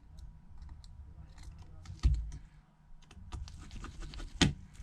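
Small scattered clicks and taps of a precision screwdriver and tiny screws being worked on an iPhone 7 Plus's frame, with a dull thump about two seconds in and a sharper click near the end.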